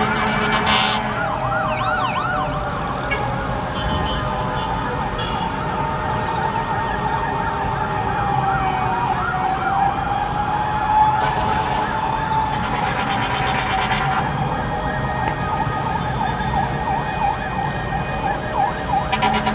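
Several fire truck sirens sounding together: a quick yelp rising and falling about three times a second, overlapping a slower wail that climbs and sinks over several seconds.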